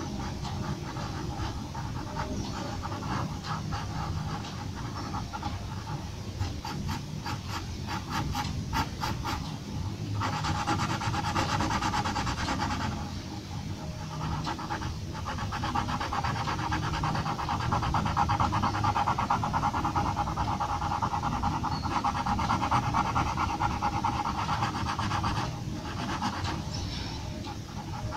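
Graphite pencil hatching on drawing paper: runs of rapid, short scratching strokes, broken by a few brief pauses where the pencil lifts.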